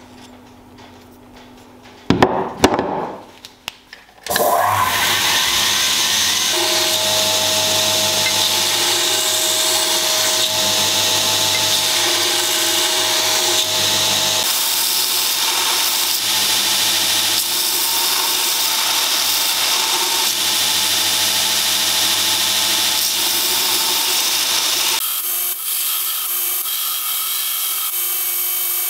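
A few loud knocks, then about four seconds in a belt grinder starts and runs steadily. Near the end its abrasive belt grinds the steel of an old axe head.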